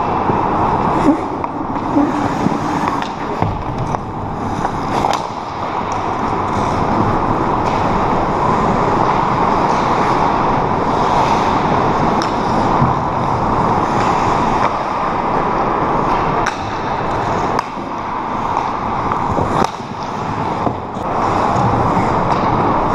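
Ice hockey rink sounds: a steady hiss of skates on the ice, broken several times by sharp clacks of hockey sticks and the puck, echoing in the arena.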